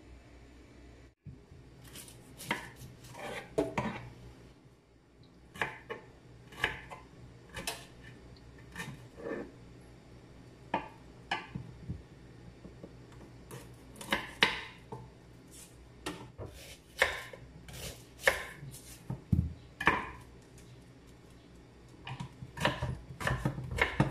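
Kitchen knife slicing garlic and ginger on a wooden cutting board: irregular knocks of the blade striking the board, coming faster near the end.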